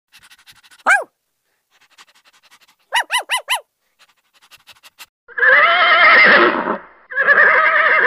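A dog gives one short yelp about a second in, then four quick yips around three seconds in. A horse then whinnies twice, two long calls with a wavering pitch, louder than the dog.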